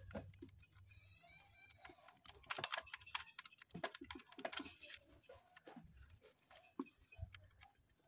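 Faint clicking and light rattling of hands working among wiring and plastic connectors in a car engine bay, with a cluster of sharp clicks in the middle. A faint animal call sounds about a second in.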